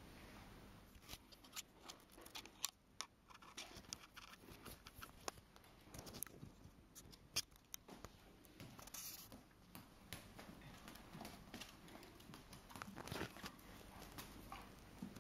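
Faint, irregular taps and clicks of a dog's boots stepping on wooden floorboards as he walks in them.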